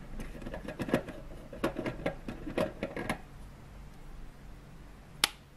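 A run of small clicks and knocks over about three seconds, then one sharp click near the end: LED filament lamps being handled and taken out of their lamp holders.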